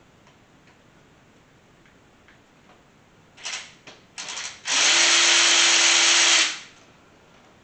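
Power drill with a socket taking out the engine's oil pan bolts: a few short blips of the trigger, then one steady run of about two seconds.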